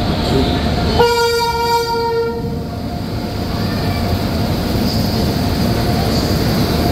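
WAP-7 electric locomotive sounding one horn blast about a second in, lasting about a second and a half, over the steady rumble of the train rolling past on the rails.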